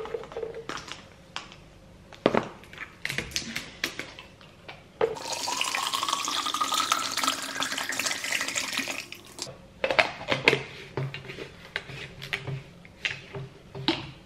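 Water poured from a plastic bottle into a plastic shaker bottle for about four seconds, the pouring tone rising steadily as the shaker fills. Before and after it come small clicks and knocks of the containers being handled.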